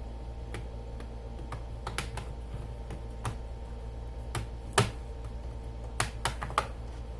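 Plastic snap clips of a laptop's keyboard panel clicking into place one by one as its edges are pressed down, about nine irregular sharp clicks, the loudest about two-thirds of the way through and a quick run of three near the end.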